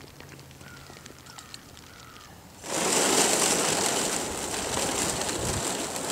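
A plastic ice-fishing sled with a one-man shanty is dragged over wet, water-covered ice, making a loud steady hiss. The hiss starts suddenly about two and a half seconds in. Before it there are only faint scattered ticks and a few faint chirps.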